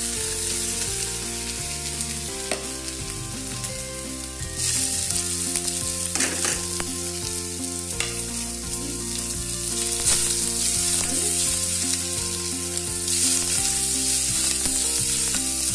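Chopped onions sizzling and frying in hot oil in a pan, stirred with a wooden spatula that scrapes and taps against the pan. The sizzle is a steady hiss.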